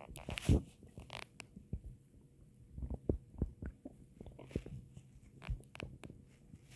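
A person's stomach growling and gurgling: a run of short, irregular gurgles and pops, the loudest about half a second in.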